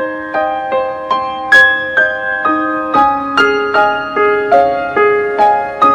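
Background piano music: a gentle melody of single notes struck two or three a second, each left ringing.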